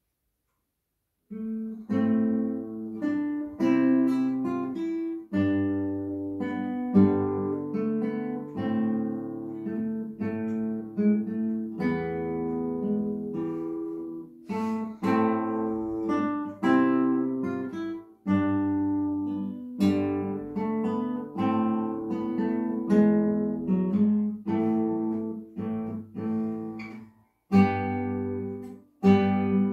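Nylon-string classical guitar played fingerstyle as a solo piece, a plucked melody over bass notes, starting about a second in.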